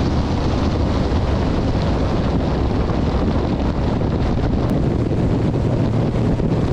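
Motorboat running under way: a steady low engine drone and rushing water, heavily buffeted by wind on the microphone.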